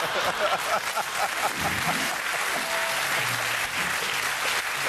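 Studio audience applauding and laughing; a quick run of laughs stands out over the clapping in the first second and a half.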